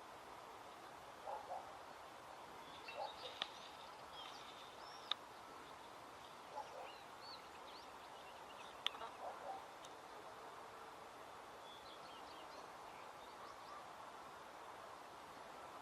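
Small birds chirping and whistling on and off, with a few short lower calls and odd clicks, over a steady hiss of outdoor background noise.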